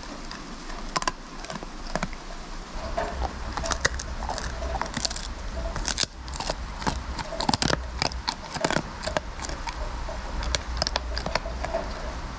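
A golden retriever puppy gnawing a dried meat chew stick held in a hand, with irregular crunching and cracking bites throughout.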